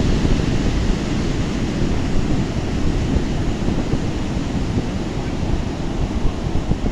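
Sea waves breaking on the shore: a steady, low rush of surf with no distinct crashes standing out.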